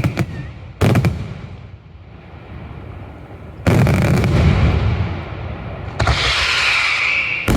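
Daylight fireworks display: a sharp shell bang about a second in that dies away, then a heavier burst about halfway with a long rumbling tail, and a hiss joining near the end.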